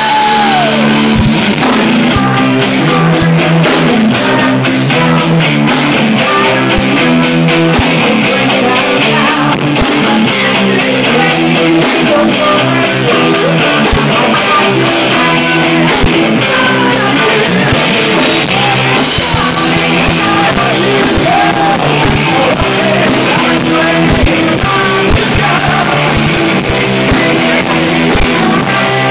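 Rock band playing loud and live: electric guitar over a drum kit, with a steady cymbal beat at about two strikes a second through the first half or so.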